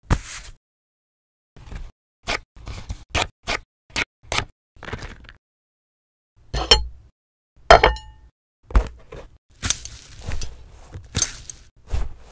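Stop-motion cooking sound effects: a string of short, sharp knocks and clicks, a few a second at times, like food being chopped and tapped on a cutting board. Two strokes near the middle carry a brief ringing tone, and the last few seconds fill with denser crinkly rustling between the knocks.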